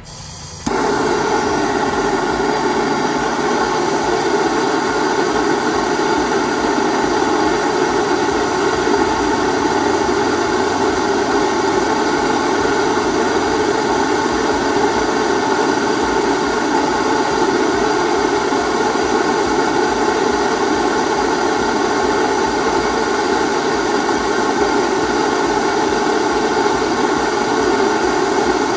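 Propane torch lit about a second in, then burning with a loud, steady flame noise that does not change.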